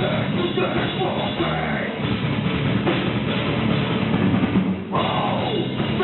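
Heavy metal band playing live, a drum kit pounding under dense distorted sound, in a loud, muffled recording with no high end.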